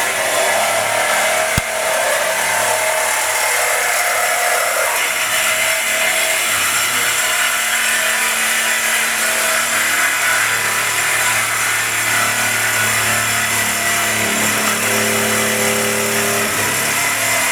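Power saw cutting through the metal of old tables, running steadily throughout. The sound changes character about five seconds in.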